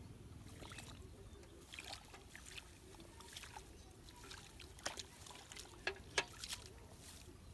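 Faint small splashes and squelches of hands working in shallow muddy water in a rice field drain, a scatter of short wet clicks that grows busier in the second half.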